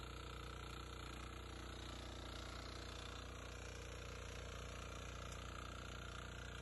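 Walk-behind power tiller's engine running steadily under load as its rotary tines churn through hard, untilled paddy-stubble soil.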